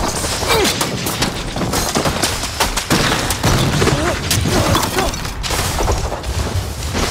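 Film battle sound effects of a wizard duel: a rapid series of sharp cracking blasts and booms as spell beams strike and clash, with crashing debris.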